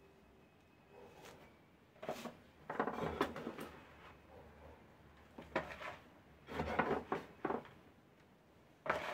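Potting soil being pressed down by hand and added with a small trowel around a thick branch cutting in a plastic pot: several irregular bursts of rustling and scraping.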